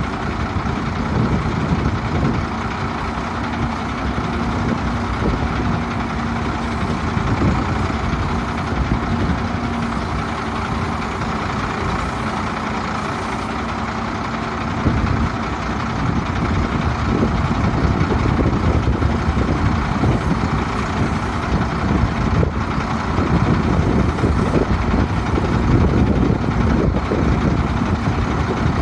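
Diesel engine of a 1995 International 4900 crane truck running steadily while the hydraulic crane boom is raised. A faint steady hum sits under the engine for the first several seconds, and the sound grows a little louder about halfway through.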